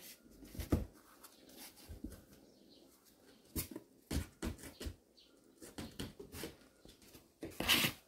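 Kittens scrambling on cardboard boxes: an irregular series of short scratches, taps and rustles of claws and paws on cardboard, the loudest cluster near the end.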